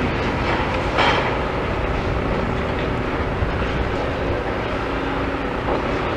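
Demolition excavator running steadily, with a loud crunch about a second in as it chomps through steel-reinforced concrete, and a faint whine over the rumble.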